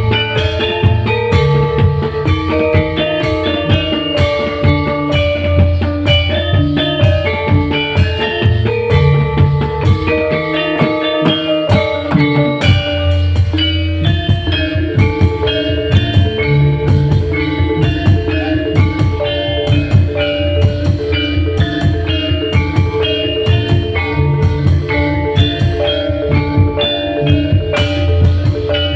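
A live band playing an up-tempo song with drums and a busy melody line over a strong bass; the bass drops out for about two seconds before halfway, then comes back in.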